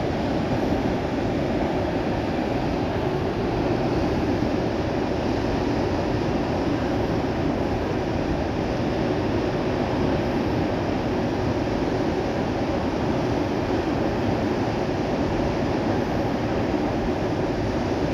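Steady, unbroken rushing of a fast river, an even low-pitched noise that does not change.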